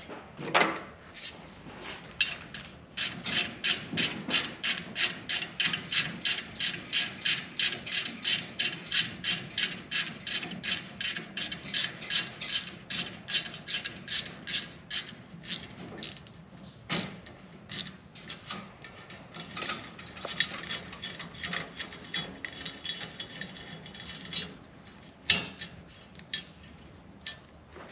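Hand ratchet wrench clicking as it tightens bolts on a roof-rack bracket: a steady run of about three clicks a second, then slower, irregular clicks in the second half, with one sharper, louder click near the end.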